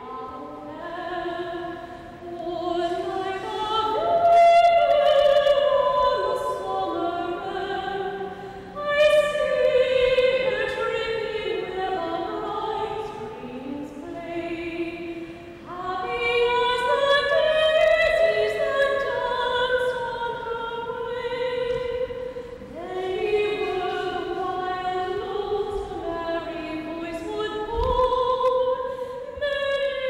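A female opera singer singing unaccompanied, in long held phrases with vibrato and short breaths between them.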